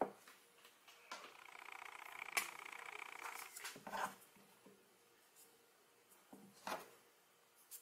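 Faint handling sounds of small ring magnets and a marker pen being picked up and set down: a few light clicks, with a faint continuous rustling noise from about one to four seconds in.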